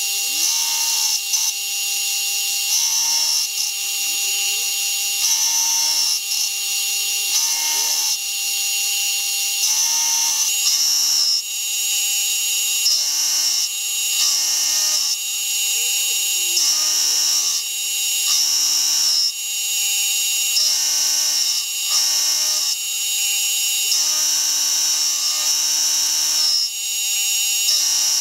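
Milling machine spindle running with an end mill cutting a radius into a metal workpiece on a rotary table. There is a steady motor whine, and the cutting noise comes and goes in a regular rhythm roughly every second as the work is fed round into the cutter.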